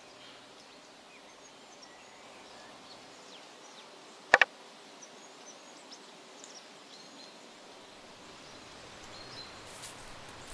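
Quiet outdoor ambience with faint bird chirps. About four seconds in comes a sharp double knock, the loudest sound. Near the end a rustling begins.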